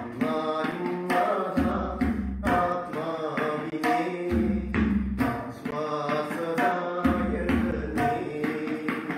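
A song: a voice singing sustained, wavering lines to tabla drumming, with regular drum strokes and deep bass tones under the voice.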